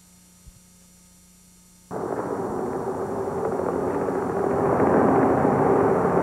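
Near silence with a faint hum for about two seconds, then a steady rush of engine noise cuts in suddenly and grows louder.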